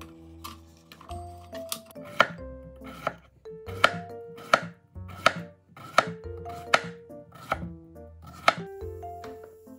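Chef's knife slicing a cucumber into rounds on a wooden cutting board: a regular series of sharp knocks as the blade meets the board, about three cuts every two seconds, stopping shortly before the end.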